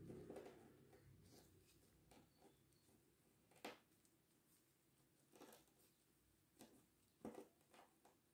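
Near silence broken by several faint, short crackles and clicks of crumbled dry clay flakes pressed and shifted under a plastic-gloved hand; the clearest come about halfway through and twice near the end.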